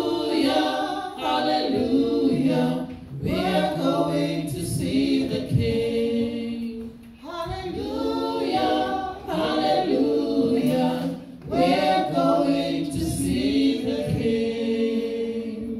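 A woman singing a gospel song into a microphone, with the congregation joining in unaccompanied, in phrases with long held notes; the singing dies away near the end.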